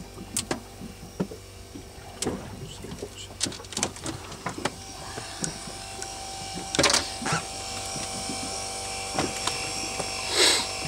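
Electric fishing reel's motor whining steadily as it winds line up from deep water, the whine setting in about halfway. Scattered clicks and knocks of handling on the boat come in the first half.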